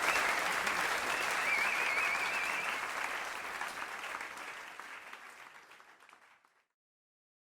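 Audience applause fading out over about six seconds into silence, with a wavering high cry from the crowd standing out briefly near two seconds in.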